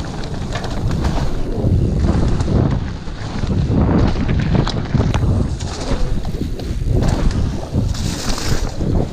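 Wind buffeting an action camera's microphone over tyre noise and rattle from a mountain bike riding fast down a muddy, leaf-covered trail, with scattered sharp knocks from the bike and a burst of hiss near the end.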